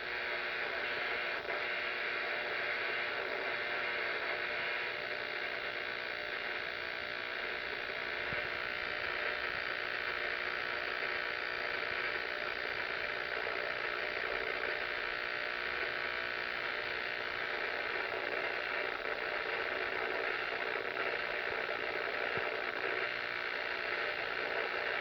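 Two-meter amateur radio receiver playing electrical interference from an old window air conditioner: a steady, buzzy hiss of radio noise. It turns really scratchy when the air conditioner is struggling to keep running.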